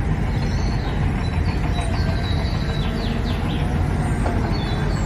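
Large diesel wheel loader with a fork attachment running as it drives across dirt: a steady low engine drone. Faint bird chirps come through in the middle.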